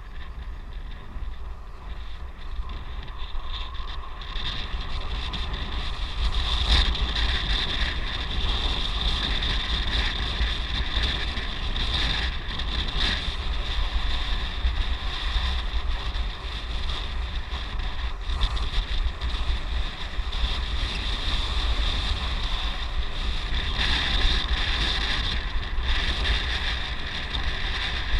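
Wind rushing over the microphone with a steady low rumble of travel along a road, and a high steady hiss that swells twice.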